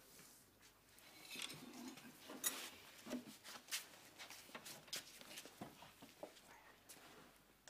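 Quiet clinks and clicks of dishes and cutlery at a dining table, with a rustle of paper and one sharper knock about two and a half seconds in.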